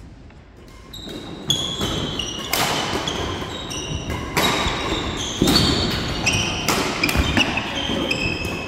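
A badminton rally: about five sharp racket-on-shuttlecock hits, roughly one a second, each ringing briefly in the hall. Short, high squeaks of trainers on the wooden court floor come between the hits, over the players' footsteps.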